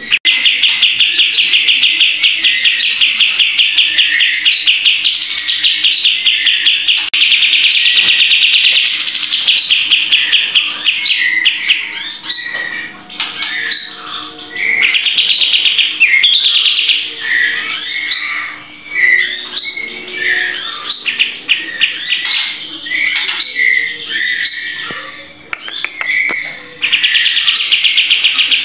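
Kapas tembak bulbul singing vigorously in a cage: long, very fast rattling trills alternating with short rising chirps, with a few quieter pauses in the middle.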